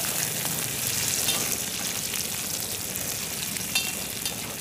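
Sliced shallots, garlic, chillies and galangal sizzling in hot oil in a pan while being stirred, with a steady hiss and a few small clicks; the oil is spitting.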